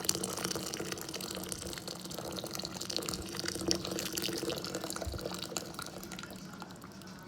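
Hot water being poured into a glass jar, a steady splashing trickle that fades somewhat near the end.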